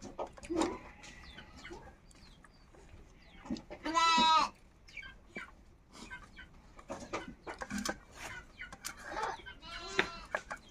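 A goat bleating, once loudly about four seconds in with a wavering, quavering call and again more weakly near the end, among scattered chicken clucks and small clicks.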